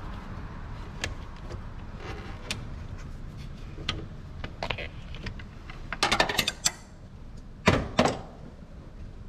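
Light metallic clicks and clinks of parts and tools being handled in a car's engine bay, with a quick clattering run about six seconds in and one louder knock near eight seconds, over a steady low rumble.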